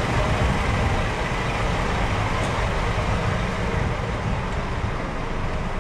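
Scania R-series truck idling at a standstill: a steady low engine noise, with road traffic around it.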